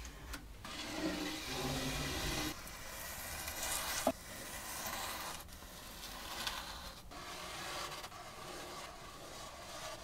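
Flat bristle paintbrush swishing in repeated strokes across bare wood, spreading wet stain over the table's wooden frame, with a brief sharp tap about four seconds in.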